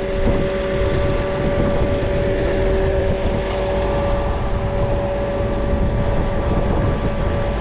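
Farm tractor engine running steadily as it pulls ahead with the cultivator, a steady whine riding over the low rumble.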